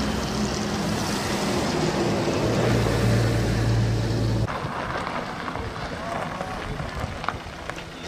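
A drone's propellers humming steadily overhead, mixed with wind rushing on the microphone; the sound drops away abruptly about four and a half seconds in, leaving quieter outdoor noise.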